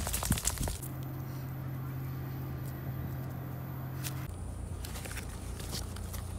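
Small green jujube fruits dropping onto dry ground in a quick patter at first, then scattered light clicks of the fruit being picked up by hand and dropped into a woven plastic sack, over a low steady hum.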